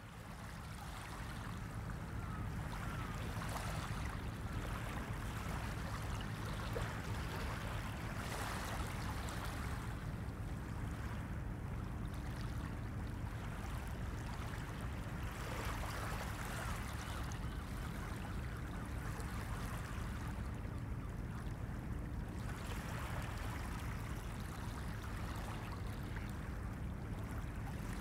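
Ambient bed of flowing water with a low steady hum underneath, swelling up over the first two seconds and then holding steady with slow rises and falls.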